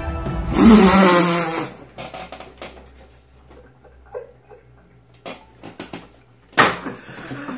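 A man bursts into loud laughter, then keeps laughing in quieter, broken breathy bursts, with a sharp slap or clap near the end.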